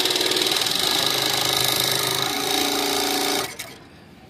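Jack W4D flatbed interlock (flatlock) industrial sewing machine stitching a test seam with its newly fitted needle bar, running fast with a rapid, even stitching rhythm and a steady high whine. It stops about three and a half seconds in.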